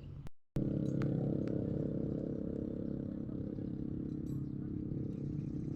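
A small engine running steadily at an even speed, starting abruptly just after a brief cut-out of the sound.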